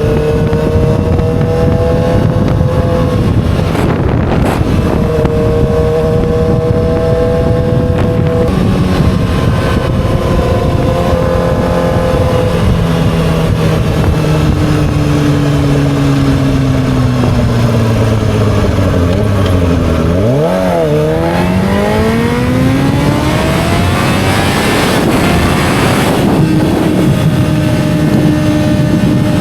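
2007 Yamaha YZF-R6 inline-four engine running under way. The revs hold and step a couple of times, then wind down slowly over several seconds. About two-thirds in the engine note dips and rises sharply, then climbs in a long rising rev and levels off near the end.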